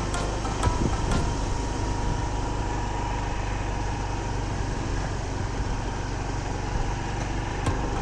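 Honda Lead 125 scooter's single-cylinder engine running steadily, a low even hum.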